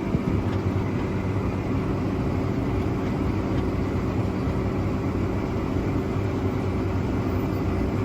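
Combine harvester running steadily while harvesting corn: an even engine and machinery drone with a steady low hum.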